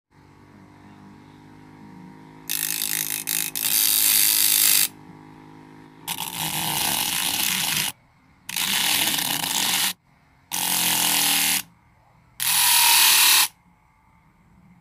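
Small DVD-player motor spinning a sandpaper-covered DVD disc, humming steadily, then five scraping bursts of one to two seconds each as a utility knife blade is pressed against the spinning sandpaper and lifted off again.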